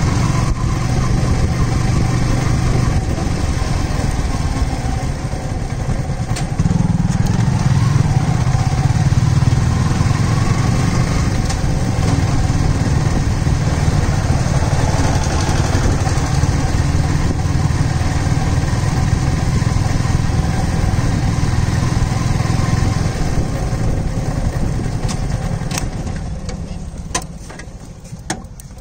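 Yamaha R15 V3's 155 cc single-cylinder four-stroke engine running steadily at low road speed in third gear, heard from the rider's seat. Near the end the engine note dies away as the bike comes to rest, with a few light clicks.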